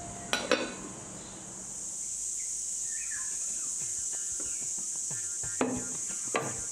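Crockery knocking on a wooden table as a bowl is covered and a plate and bowl are handled: two short clinks just after the start and two more near the end, over a steady high hiss.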